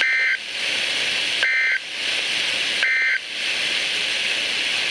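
NOAA Weather Radio sending the EAS end-of-message signal: three short warbling bursts of SAME digital data tones, about a second and a half apart, over steady radio hiss. The bursts mark the end of the alert broadcast.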